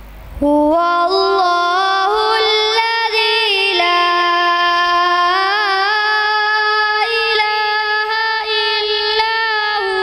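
A boy reciting the Quran in melodic tilawat style, starting about half a second in: long held high notes with ornamented turns in pitch.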